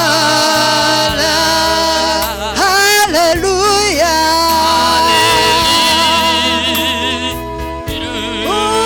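Swahili gospel worship music: a voice holding long, wavering notes over instrumental backing with a steady bass line.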